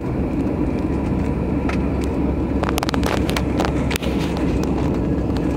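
Steady low rumble of an airliner's jet engines and rushing air, heard inside the cabin on the landing approach. A few short, sharp clicks come around three seconds in.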